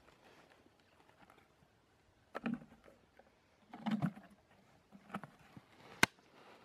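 Clear plastic water jug being handled and set down over a rose cutting in garden soil: a few short, quiet scuffs and knocks, and a sharp click about six seconds in.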